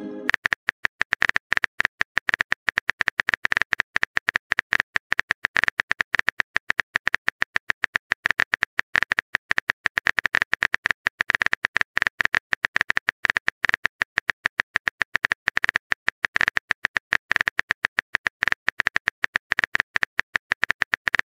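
Keyboard typing sound effect: rapid, sharp key clicks, many a second, as a text message is typed out.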